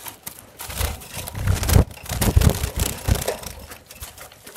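Handling noise in a finch cage: dry grass nesting material rustling and crackling as a plastic feeder dish is pushed in, with a few dull knocks of the dish against the cage.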